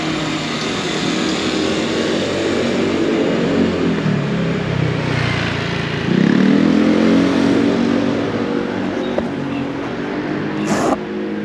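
Street traffic: a motor vehicle engine passing close by, its pitch sliding down, then another engine swelling louder and rising about six seconds in. A short sharp click near the end.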